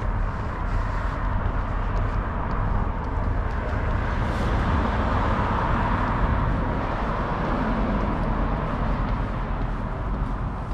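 Road traffic: a steady rush of passing cars over a low rumble, swelling about halfway through as a vehicle goes by.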